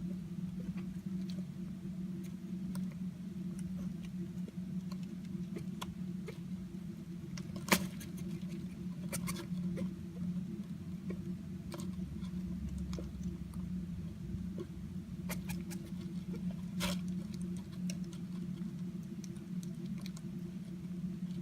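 A pet hedgehog rustling and pattering about, with a few short sneezes, the loudest about eight seconds in, over a steady low hum. The owner puts the sneezing down to the stress of a new home.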